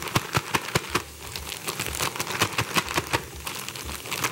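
Chicken pieces frying in hot oil, a steady run of sharp pops and crackles several times a second. Under it, a sealed plastic bag of chicken and flour is being shaken to coat the pieces.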